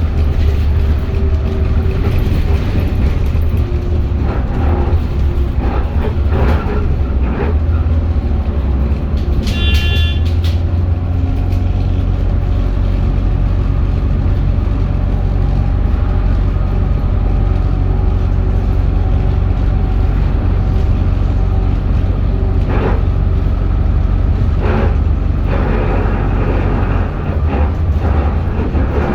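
Interior sound of an Alexander Dennis Enviro400H hybrid double-decker bus running: a steady low drone with scattered rattles and knocks. A short electronic beep sounds about ten seconds in.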